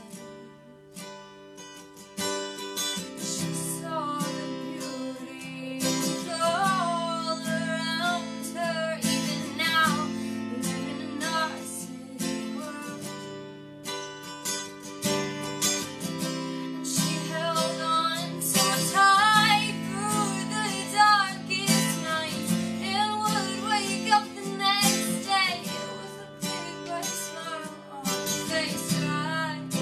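A young woman singing while strumming an acoustic guitar with a capo. The guitar plays alone for the first couple of seconds, then the voice comes in.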